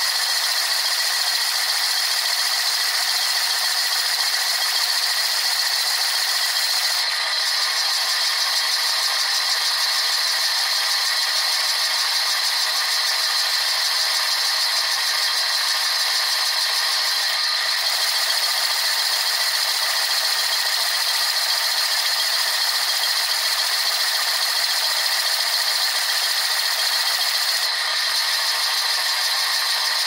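Bosch dishwasher in its high-pressure wash, heard from inside the tub: a steady, rattling hiss of water jets pelting the racks, dishes and camera.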